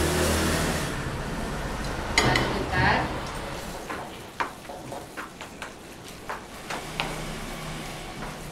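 A spatula stirring macaroni in a frying pan on a gas stove while the food sizzles. From about three and a half seconds in comes a run of light, short taps and scrapes of the spatula against the pan.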